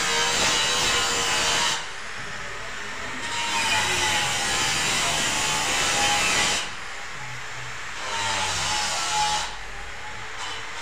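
A tool cutting grooves into a gypsum ceiling cornice, heard as three long grating passes of two to three seconds each with short pauses between them.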